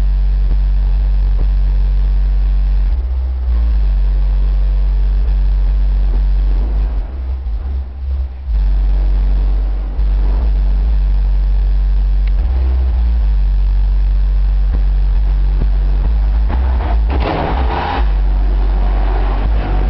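Two 8-inch subwoofers playing a loud bass test track: deep, sustained low notes that change every few seconds. A brief noisy burst comes about 17 seconds in.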